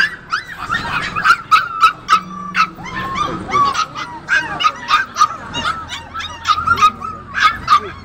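Caged puppies yipping and barking, several calls a second, high-pitched and overlapping, mixed with whimpering.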